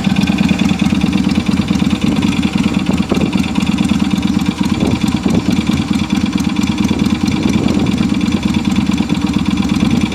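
Yamaha Virago 250's air-cooled V-twin idling steadily with a fast, even mechanical clatter: the noise the owner thinks is coming from a piston.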